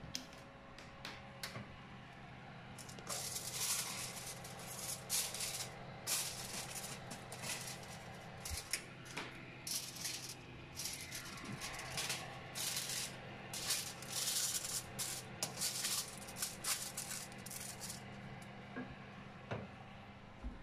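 Latex-gloved hands rubbing and handling, making a run of short, bright rustling bursts like a shaken rattle, over a steady low hum from the switched-on oven.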